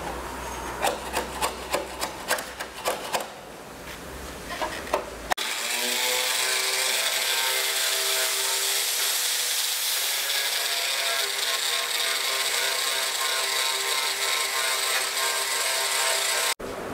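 Bodywork tools working a car shell. First comes a hand tool rasping in rhythmic strokes, about three a second. It gives way abruptly to a power tool's motor running steadily with a high whine.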